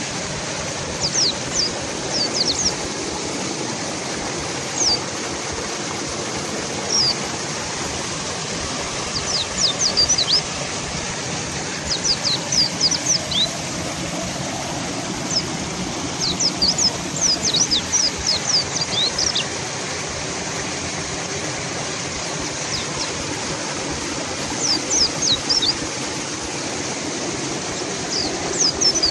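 Steady rush of a fast-flowing river, with a mountain white-eye calling over it in bursts of short, high, falling chirps every few seconds.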